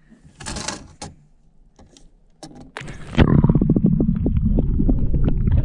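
A few light clicks and rustles of handling, then about three seconds in a loud, steady low rumble starts: a small fishing boat under way while trolling, its motor running with wind on the microphone.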